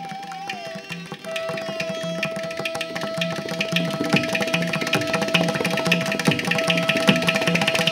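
Background music: a steady drum rhythm under a long held note, slowly growing louder.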